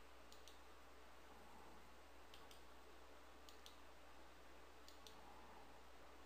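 Faint computer mouse button clicks, four quick press-and-release pairs spaced a second or more apart, over a low steady hum.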